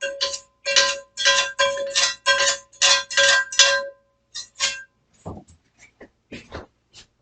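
A utensil scraping out a heavy metal skillet in quick strokes, about three a second, with the pan ringing through them. After about four seconds the scraping stops and only a few lighter taps and clinks follow.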